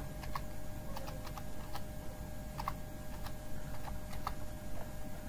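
Keystrokes on a computer keyboard as a number is typed in: a string of short, irregularly spaced clicks over a steady background hum.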